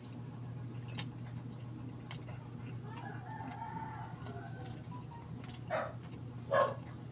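A rooster crowing in the background: one long wavering crow about three seconds in. Near the end come two short, louder animal calls, over a steady low hum and faint clicks of chewing.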